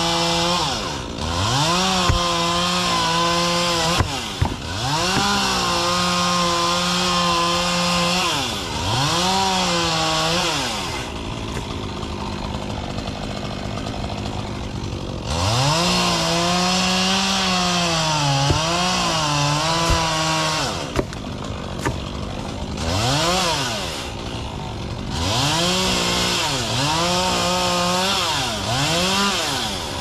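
Two-stroke chainsaw revving to full throttle in repeated bursts of a few seconds and dropping back to idle between them, with a longer idle stretch near the middle. Its pitch wavers and sags in places while held high, as the chain cuts.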